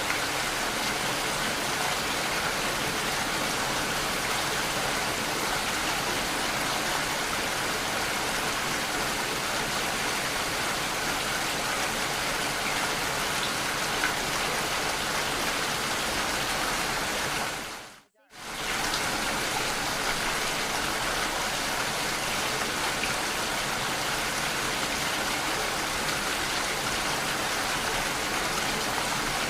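Steady, even rain sound that dips out briefly about two-thirds of the way through and fades straight back in, as if a looped track is restarting.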